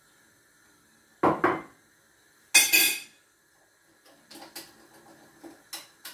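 Utensil clinking and scraping against a bowl while pancake batter is stirred: two quick knocks a little over a second in, a louder clattering scrape about halfway through, then lighter clinks.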